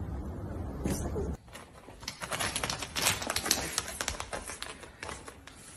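A dog's booted paws scrabbling on a tiled floor: rapid, irregular tapping and clicking. Before that, for about the first second and a half, a dog's low play-growl.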